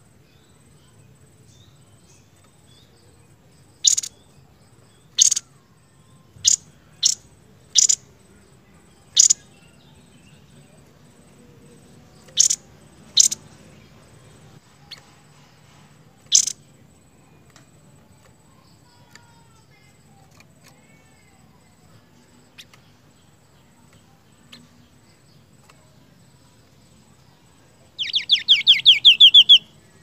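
Seniper songbird calling: about nine loud, sharp, very short single notes spaced irregularly, then a fast rattling trill of rapid notes near the end.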